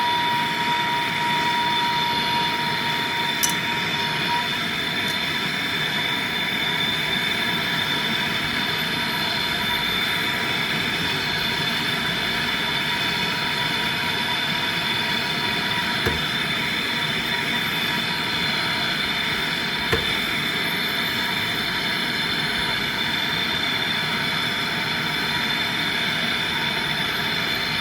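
Pressurised gas blown steadily through a refrigerator's refrigerant line to check whether it is clogged: a steady rushing hiss with a constant high whistle. A lower tone stops about four seconds in, and there are small clicks twice later on.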